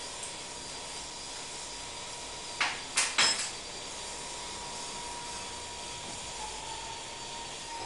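Three sharp metal knocks in quick succession a little under three seconds in, as parts of a heavy metal housing are handled and knocked against each other, over a steady background hiss with a faint high whine.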